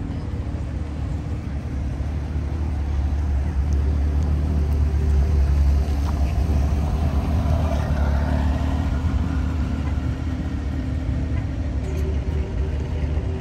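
Porsche Carrera GT V10, in Gemballa Mirage GT form, running at low speed as the car pulls away slowly. Its deep exhaust note grows louder as it passes, about five seconds in, then settles as it moves off.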